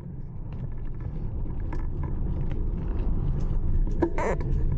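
Mountain bike ride on a dirt singletrack trail heard through the camera's microphone: a low, steady rumble of wind and tyres that fades in and grows louder, with scattered small clicks and rattles from the bike and a brief louder rattle near the end.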